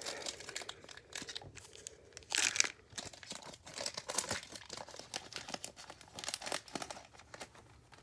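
Foil wrapper of a trading card pack being torn open and crinkled in the hands, a run of irregular crackles with the loudest rip about two and a half seconds in.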